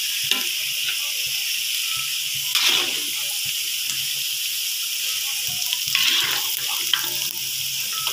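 Chicken liver pieces sizzling steadily in hot oil in a steel kadai as they are lifted out with a spoon and slotted skimmer, with a few brief scrapes of metal against the pan.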